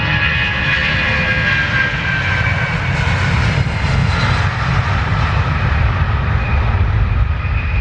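Icelandair Boeing 757's Rolls-Royce RB211 turbofans at takeoff power: a loud, steady jet rumble with whining tones that slowly fall in pitch as the heavy aircraft goes by on its departure run.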